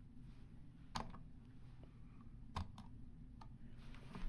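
Computer mouse buttons clicking, a few sharp separate clicks: one about a second in, two close together past the middle, and one near the end, over a faint low hum.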